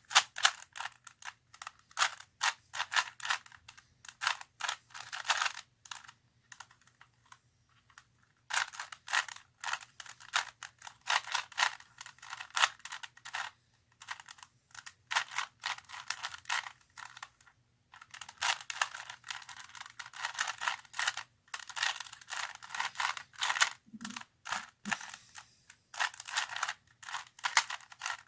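Plastic 3x3 Rubik's cube being turned by hand: rapid runs of clicking and clacking as the layers snap round, broken by short pauses every few seconds.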